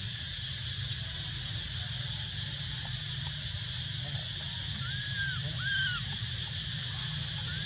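Outdoor ambience: a steady high hiss over a low hum, with a sharp click about a second in and two short rising-then-falling calls about five and six seconds in.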